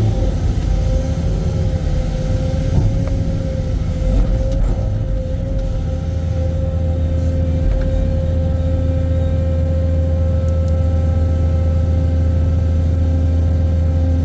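Ship excavator's engine running steadily: a low rumble with one steady whining tone over it, holding more evenly from about halfway through.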